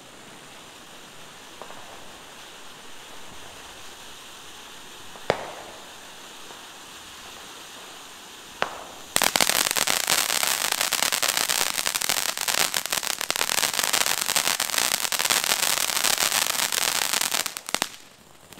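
Consumer fireworks fountain igniting about halfway through and spraying sparks with a loud, dense hissing crackle that cuts off shortly before the end. Before it ignites there are two sharp pops.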